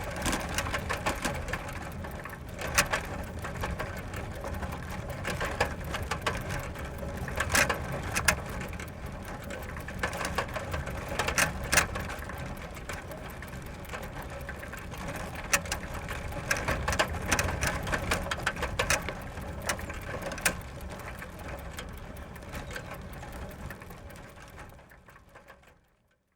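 Bicycle ridden fast on gravel: a steady crunch of tyres on loose stones, with frequent sharp clicks and rattles. It fades out near the end.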